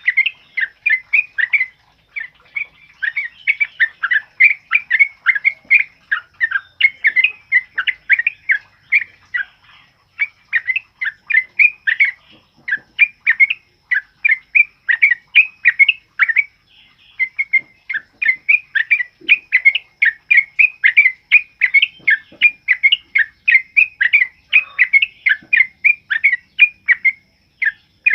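Yellow-vented bulbul (trucukan) singing loud, rapid, rolling runs of chirping notes, several a second, broken by short pauses.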